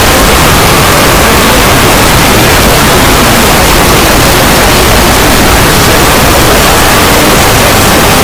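Harsh, heavily distorted noise held at full volume without a break, with faint pitched sounds buried in it: an overdriven, clipped meme sound effect.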